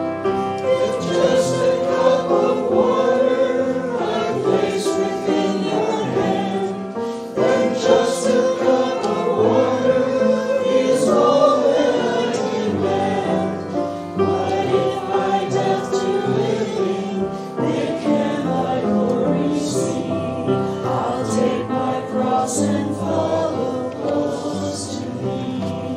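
Congregation singing a hymn together with musical accompaniment.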